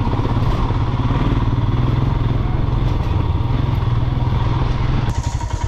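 Motorcycle engine running steadily while being ridden, heard from the rider's seat. About five seconds in, the sound changes abruptly to a choppier engine pulse with more hiss.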